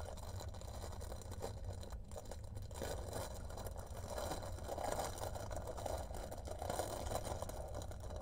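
Rattling and crinkling of a clear plastic bag of embroidery floss skeins being handled and rummaged through, in uneven scratchy bursts over a low steady hum.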